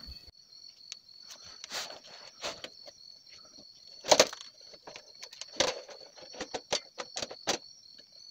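Scattered metal clicks and knocks of hand tools at work on a 1999 Chevrolet Astro's rear differential as its oil is about to be drained. The loudest knock comes a little after four seconds in, with a quick run of clicks later on, over a steady high-pitched trill.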